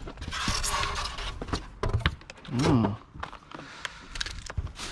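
Rummaging by hand through a pile of discarded clothes and rubbish: a rustling stretch in the first second, then scattered light knocks and clicks as things are shifted, with a short 'oh' a little past halfway.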